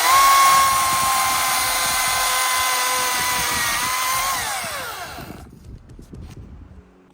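Ryobi chainsaw running: a high-pitched motor whine that finishes rising in pitch just after the start, holds steady for about four seconds, then drops in pitch and dies away about five seconds in.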